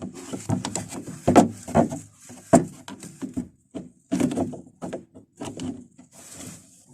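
Pliers bending the tab of a steel lock washer back against a brake caliper bolt: an irregular run of metal clicks, knocks and scrapes.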